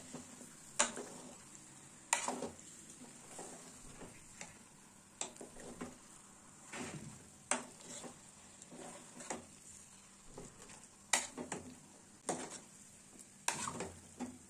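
Metal spoon scraping and knocking against the inside of an aluminium pressure cooker as chicken pieces are stirred through a thick masala, about a dozen strokes at irregular intervals. A faint steady sizzle of the masala frying runs underneath.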